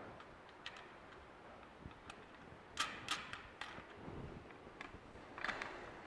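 Light metal clicks and taps of an aluminium rear brace being fitted to the frame of a flat panel, with a cluster of sharp clicks about three seconds in and a few more near the end.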